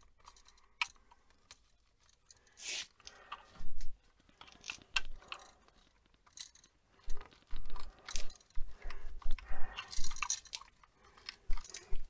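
Electrical wires being bent and pushed back into a wall switch box by hand: irregular crackling scrapes and small clicks, sparse at first and busier in the second half.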